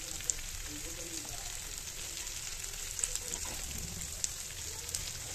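Sliced onion and green capsicum sizzling in hot oil in a non-stick frying pan, being lightly sautéed: a steady frying hiss flecked with a few sharp ticks.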